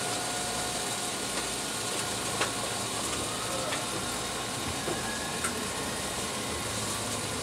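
Tokyu Setagaya Line 300-series tram running along the track: a steady rumble from the wheels and running gear, a few light clicks, and a faint motor whine that rises in pitch a couple of seconds in.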